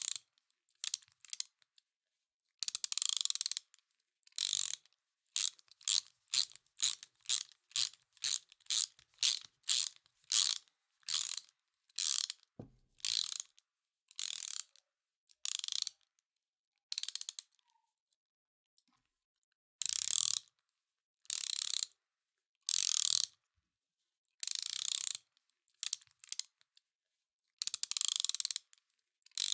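Hand ratchet wrench clicking in repeated short strokes, each a quick run of pawl clicks, with a pause of a couple of seconds a little past the middle.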